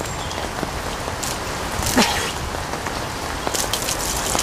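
Steady rain falling on leaves and ground, with water splashing from a plastic bottle poured over a face and scattered drips. One brief louder sound about two seconds in.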